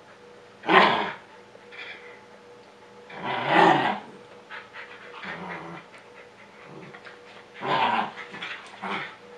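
Dogs growling over a rope tug toy, in three loud bursts about a second in, in the middle and near the end, with quieter panting between.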